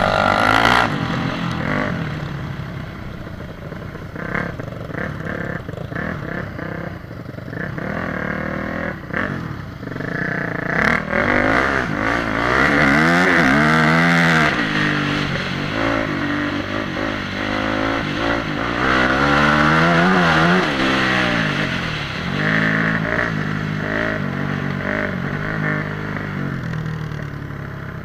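Motorcycle engine running and revving, its pitch rising and falling again and again, loudest in two long rises about halfway through and again later, over rough noise.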